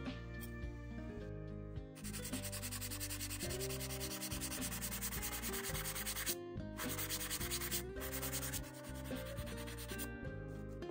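Hand sanding block rubbed rapidly back and forth over balsa wood. It starts about two seconds in and breaks off briefly twice. Background music plays throughout.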